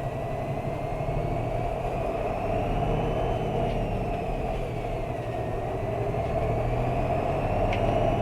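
Isuzu Erga bus with a 6HK1-TCC diesel, heard from inside the cabin with the air conditioning running: a steady engine and road rumble. Over it a faint high whine rises in pitch, falls back around the middle, and rises again. The uploader takes this mysterious high tone for noise picked up by the recording gear.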